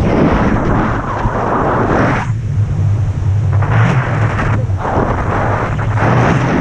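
Wind buffeting the microphone of a selfie-stick action camera in paraglider flight: a loud, steady low rumble with gusts that come and go, easing briefly about two seconds in.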